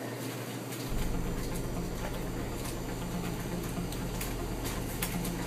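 Steady low electrical hum under faint room noise, with scattered light clicks and rustles; the hum steps up about a second in.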